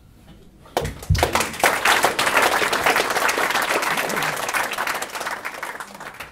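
Audience applauding, starting about a second in and dying away near the end, with a low thump as the clapping begins.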